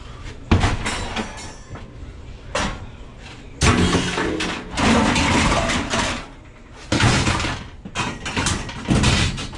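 Irregular knocks and bangs from handling tools and building materials, with two longer scraping, rattling stretches about three and five seconds in.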